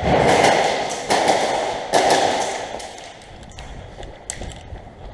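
Rustling and scuffing of a player on the move: three loud noisy swishes about a second apart, fading out after two seconds, then a few faint sharp ticks.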